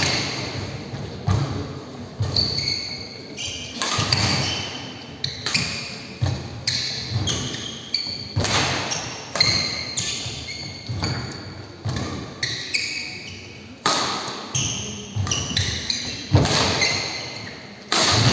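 Badminton rally: rackets striking the shuttlecock again and again, with court shoes squeaking and feet thudding on the wooden court, echoing in a large hall.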